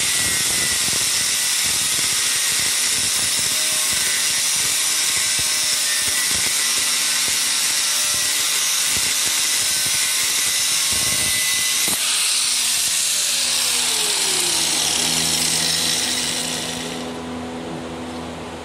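Electric angle grinder with a thin abrasive cut-off disc cutting through a metal rod, a loud steady grinding hiss. About three seconds before the end the cut stops and the grinder's motor runs on unloaded, quieter, as a steady hum.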